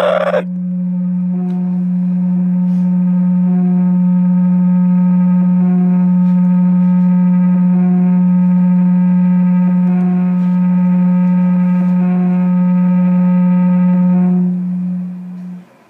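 A single low musical note held steadily as a drone for about fifteen seconds, with a slow pulse roughly every two seconds, fading out near the end.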